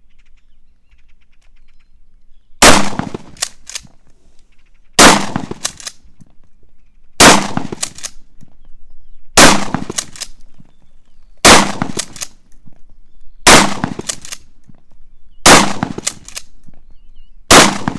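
Mossberg 590 Shockwave 12-gauge pump shotgun firing Aguila mini shells: eight shots, about two seconds apart. Each shot is followed by short clacks as the pump is worked to chamber the next shell.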